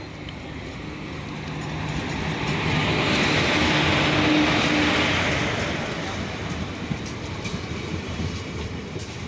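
Passenger train pulling into the station past the platform. The rumble and rail noise swell to a peak a few seconds in, then die down as it slows.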